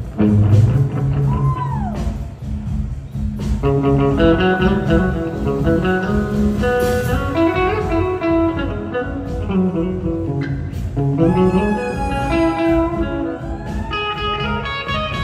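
Live blues-rock band music led by a Les Paul-style electric guitar playing lead lines, with a note bent up and back down about a second in, over the band's bass and drums.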